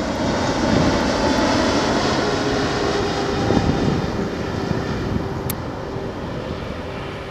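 Twin jet engines of a Boeing 777 airliner on landing approach, passing low overhead: a steady roar with a faint whine in it. It is loudest in the first few seconds and slowly fades.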